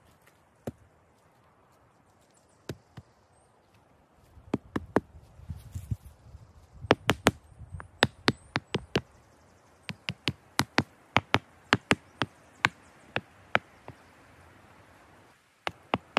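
Repeated sharp knocks of a tool striking wood: a few single knocks, then long irregular runs of strikes at up to about three a second.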